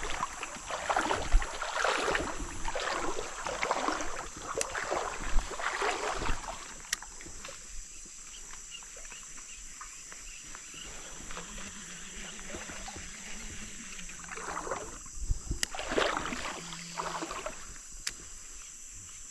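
Water splashing and sloshing in a run of repeated strokes, about one or two a second. It fades after about six seconds and comes back briefly near the end.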